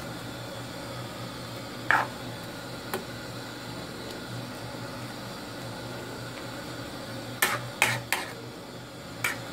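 Metal ladle stirring a wok of soupy curry, clinking against the wok's metal side: a couple of single clinks early, then a quicker run of four clinks near the end.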